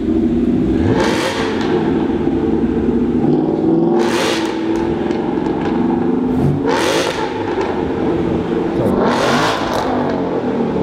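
BMW M4's twin-turbo straight-six idling and blipped four times, each rev a short loud surge of exhaust noise, echoing in an underground garage.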